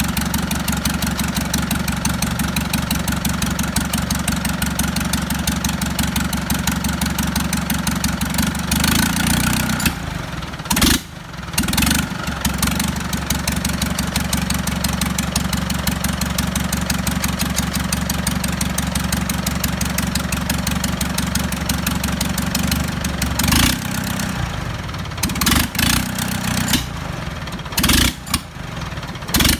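Yanmar diesel tractor engine running steadily on its newly fitted injector, with a crisp even firing beat. The sound breaks briefly about ten seconds in and several times near the end.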